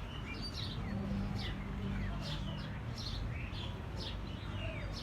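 Small birds chirping: many short, quick chirps, each falling in pitch, several a second and overlapping, over a low steady hum.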